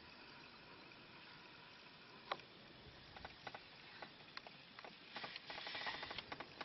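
Faint handling noise of a camera being moved inside a vehicle: one sharp click, scattered light knocks, and a quick run of rattling clicks about five seconds in.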